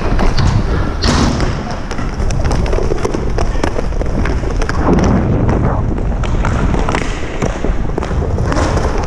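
Ice hockey play picked up by a body-worn action camera: skate blades scraping and hissing on the ice, loudest about a second in and again around five seconds, over many sharp stick and puck clicks and knocks. A steady low rumble on the microphone runs under it all.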